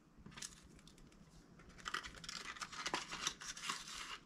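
Faint rustling and scratching of a small installation kit's packaging and adhesive strips being handled, in irregular bursts, with a light click about three seconds in.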